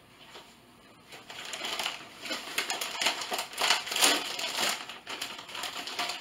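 Plastic snack bag of pretzel thins being pulled open and crinkled by hand: a dense, irregular crackle that starts about a second in and is loudest in the middle.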